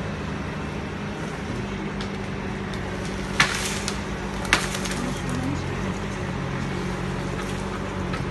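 Pine wood cracking sharply twice, about a second apart, the first with a short splintering trail, as the tree's limbs break during felling. Under it runs a steady low engine hum.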